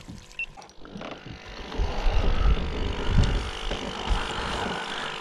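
Wind buffeting the microphone: an uneven low rumble that builds about two seconds in and eases toward the end.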